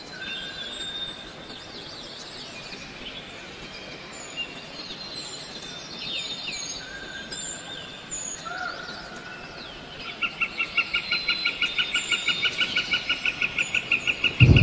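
Wild birds chirping and whistling in woodland. From about two-thirds of the way in, a fast pulsing call of about six notes a second comes in and grows louder.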